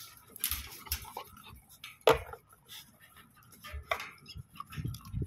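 Wire-mesh dog pen panel clinking and rattling in scattered short knocks as dogs paw and push against it, with a few sharper clicks about two and four seconds in.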